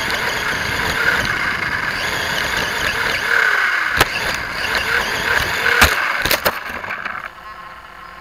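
Electric motor of a Vaterra Twin Hammers RC rock racer whining as it drives over dirt and gravel. There is a sharp knock about halfway through and a few more a little later as the truck tumbles and lands upside down. Then the motor cuts out and the sound drops away.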